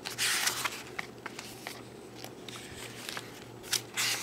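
Paper pages of a traveler's notebook insert rustling as it is handled and turned, with two louder rustles, one about half a second in and one near the end, and a few light clicks and taps between them.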